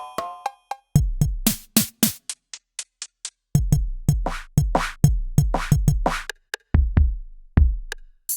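Kurzweil K2vx synthesizer playing an electronic drum-kit preset. Deep kick drums drop sharply in pitch, mixed with snare hits and short hi-hat ticks, played in quick clusters with short pauses between.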